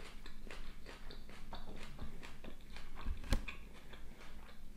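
Close-miked chewing of a mouthful of salad (cucumber, spinach and lettuce): wet mouth sounds broken by many small crisp clicks. One louder click comes a little over three seconds in.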